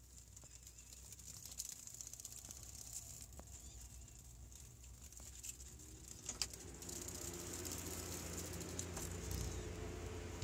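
Faint light pattering and crackling made of scattered small clicks, turning into louder rustling with a low rumble about six and a half seconds in.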